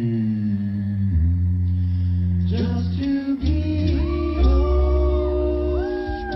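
Male a cappella vocal group singing live: held chords over a very deep bass voice. Higher voices come in about four seconds in, and the full chord is held.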